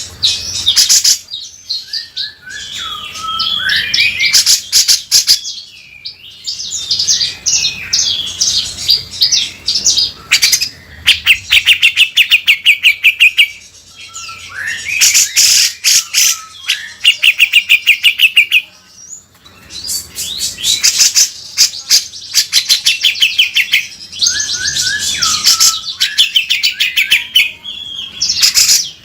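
Grey-cheeked bulbul (cucak jenggot) singing in full, harsh voice: phrases of fast rasping rattles mixed with whistled notes that slide up and down, in bouts of a few seconds with short pauses between.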